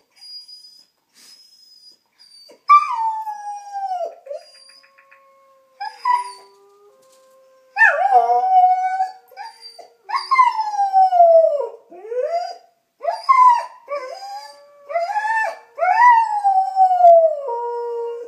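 A German Shepherd–Collie mix dog howls along with recorded wolf howls: long howls, mostly falling in pitch, begin a few seconds in and overlap more and more from about the middle on.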